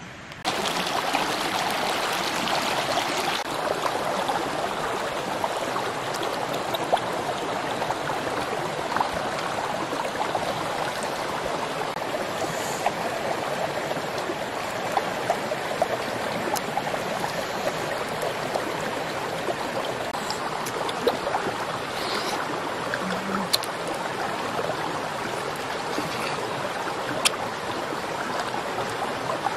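A steady rush of running stream water that comes in abruptly about half a second in, with occasional faint clicks on top.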